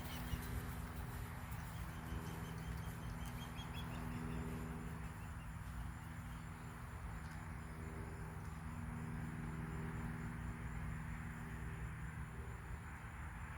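Quiet outdoor ambience: a steady low hum under faint background noise, with a faint chirping call about two to four seconds in. No shots are heard.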